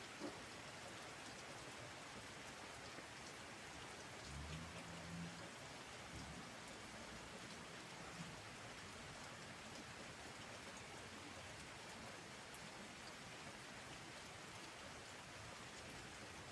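Heavy rain falling steadily, an even hiss of drops, with a brief low hum about four seconds in.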